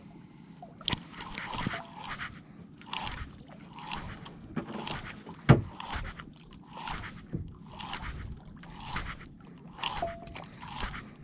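Accurate BX2 600NN conventional jigging reel being cranked in a steady slow-pitch jigging rhythm, one scraping burst of reel and line noise about every second. One sharp knock comes about halfway through.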